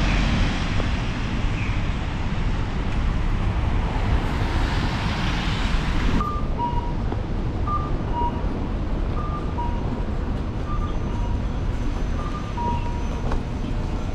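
Steady city street and traffic noise with wind on the microphone. From about six seconds in, a two-note electronic chime, high then low, repeats about every second and a half.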